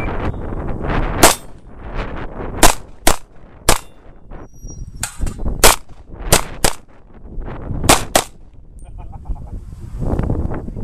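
About ten gunshots from a competitor's firearm in a practical-shooting course of fire. They come as a single shot, then mostly in quick pairs about half a second apart. There are breaks of one to two seconds as he moves between targets.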